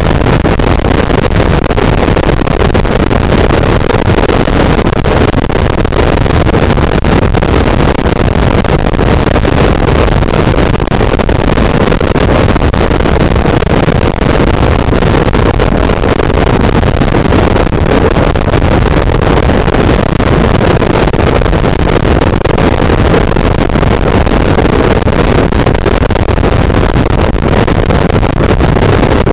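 Motor scooter riding steadily along the road: a constant loud engine drone mixed with wind and road noise, with no break or change.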